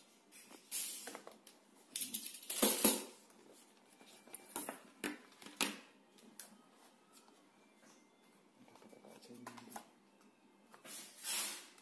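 A smartphone box being opened by hand: a utility knife cutting the seal, then the cardboard lid slid off and the box handled, in irregular scrapes, rustles and light knocks.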